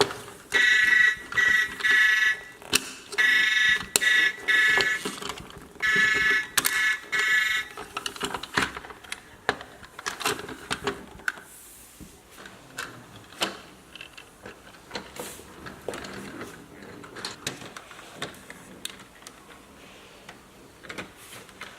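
Toy truck's electronic sound module playing pulsed beeping tones in repeated bursts for about the first seven seconds. After that come light clicks and taps of plastic toy parts being handled.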